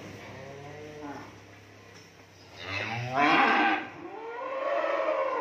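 Belgian Blue (BBB) cattle mooing: a faint call near the start, a loud bellow about three seconds in, then a second long moo near the end.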